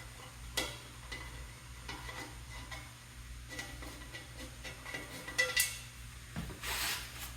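Scattered light metallic clinks and taps of a 5/32 hex key working the fasteners on a motorcycle's side panel, with a sharper click about half a second in and another a little after five seconds.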